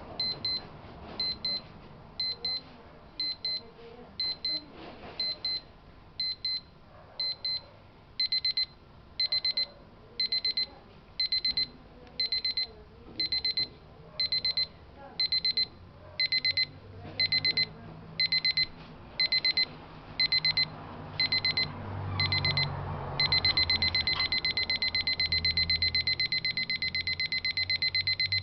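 Westclox Model 1818 digital alarm clock sounding its alarm, a high electronic beep. It starts as short beeps about once a second, switches about eight seconds in to longer, louder beeps at the same pace, and for the last five seconds or so runs together into one continuous fast-pulsing tone.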